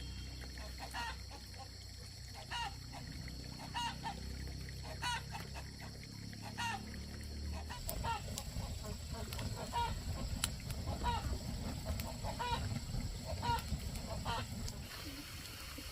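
Farm poultry calling over and over, short calls about once a second, over a low rumbling background noise that shifts about halfway through.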